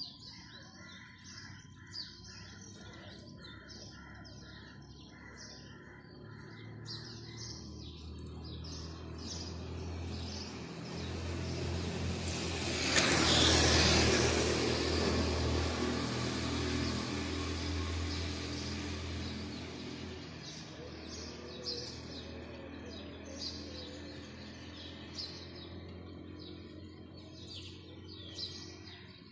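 A motor scooter approaches, passes close by about halfway through and fades away, its engine the loudest sound. Small birds chirp in quick repeated calls before it comes and again after it has gone.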